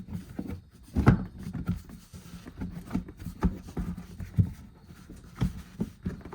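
Skid plate under the car being worked into place: a string of irregular knocks and clunks with rubbing scrapes between them, the loudest about a second in.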